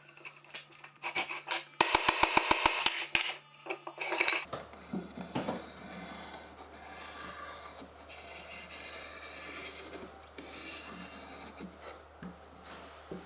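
Hand tool scraping and rasping on wood in short strokes, with a quick run of clicks about two seconds in. After about four seconds it changes to quieter, softer scraping.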